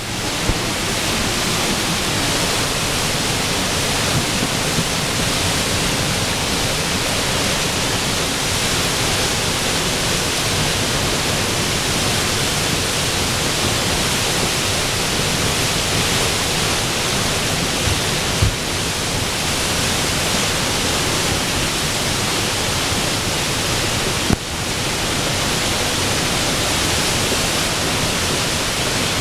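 Floodwater of a swollen brook rushing steadily and loudly, with a couple of brief knocks.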